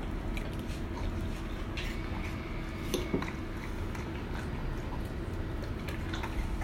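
Pit bulls chewing and licking up apple chunks, with a fork clicking against a ceramic bowl in short clicks and snaps, sharpest about three seconds in, over a steady low hum.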